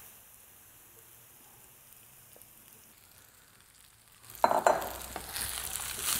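Near silence for about four seconds, then cooked rice and leeks begin sizzling in hot oil in a frying pan as they are stir-fried with a wooden spoon. A few sharp knocks of the spoon against the pan come at the start of the stirring.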